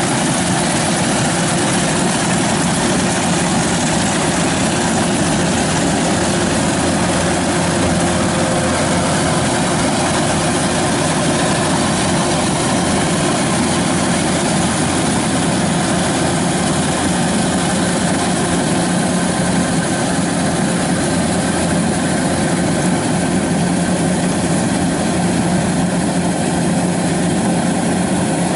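Kubota DC-93 combine harvester's diesel engine running steadily under load as the machine cuts and threshes ripe rice. It is a loud, even drone that doesn't change.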